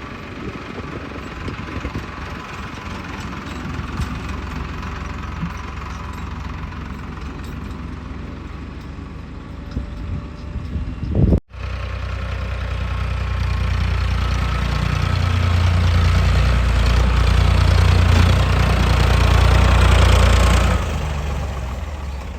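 Diesel engine of a JCB 3DX backhoe loader running. About halfway through there is an abrupt break, and then it runs louder with a heavy low drone that builds over several seconds, as if under load or revved, before dropping back shortly before the end.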